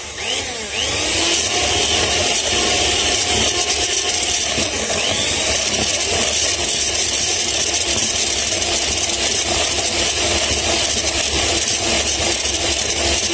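Hand-held electric mixer running steadily, its twin beaters whisking a thick cake batter in a glass bowl.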